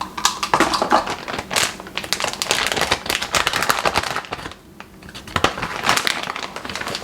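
Rustling, crinkling and rapid clicking as measuring spoons are handled and powder is scooped out, with a short quieter pause a little past halfway.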